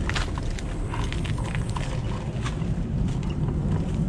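Kugoo Max Speed Pro electric scooter being ridden over a rough sandy dirt track: a steady low rumble with many small clicks and rattles as the scooter jolts over the bumps.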